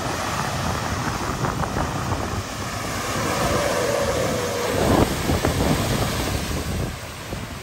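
Ford Endeavour SUV revving hard with its wheels spinning in deep, watery mud, flinging and splashing slurry. The engine note holds steady for a couple of seconds and is loudest about five seconds in.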